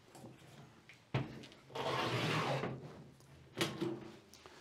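Steel motor-control cabinet door being handled and swung open: a sharp knock about a second in, about a second of rubbing noise, then a lighter clunk near the end.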